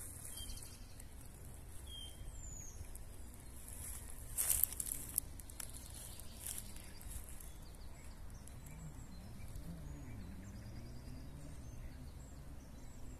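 Quiet outdoor ambience with a steady low rumble. A short, falling bird chirp comes about two seconds in, and a few sharp crackles come a little before the middle.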